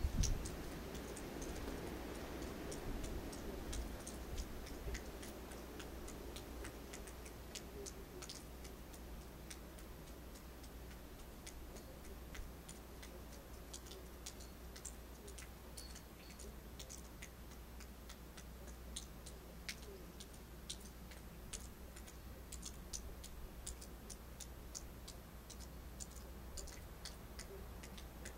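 Winter night outdoor ambience: a soft rush of wind that eases off over the first few seconds, then many faint scattered ticks and clicks, irregular and growing more frequent, over a low steady hum.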